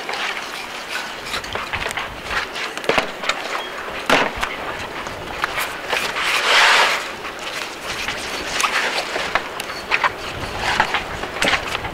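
A knife cutting and scraping through a shark's fins and skin, with irregular knocks and clicks and a louder stretch of scraping about six and a half seconds in.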